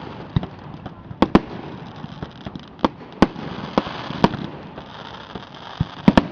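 Aerial fireworks show: a string of sharp bangs at irregular spacing, about ten in a few seconds with a close pair near the end, over a steady rushing background.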